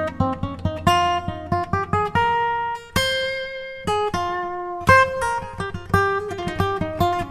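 Background music: a solo guitar picking a melody of quick notes, with a chord left ringing about three seconds in.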